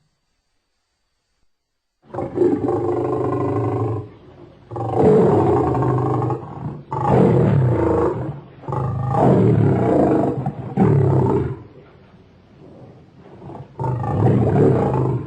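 Lion-like roars from a character's sound effect pack: after about two seconds of silence, five or six loud roars follow in quick succession with short gaps between them, then a quieter rumble and one more roar near the end.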